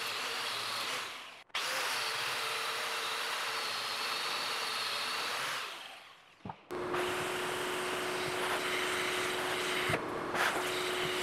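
Angle grinder with an abrasive disc grinding the rough edge of an oak slab, then winding down about six seconds in. A different small motor then starts and runs with a steady hum.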